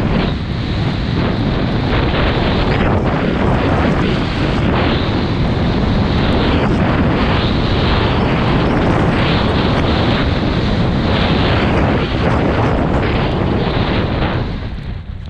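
Wind rushing over an action camera's microphone while skiing downhill at speed, mixed with the skis scraping over packed snow. It fades in the last second or so as the skier slows.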